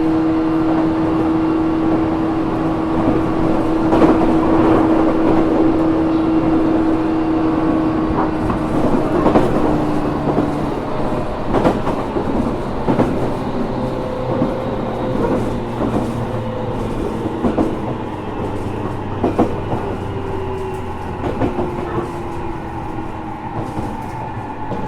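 Running sound inside a JR Kyushu 415 series 1500-subseries electric motor car, a car labelled as having an unusual noise: motor and gear whine with clacks over rail joints. A steady hum fades out about ten seconds in, then the whine falls slowly in pitch as the train slows.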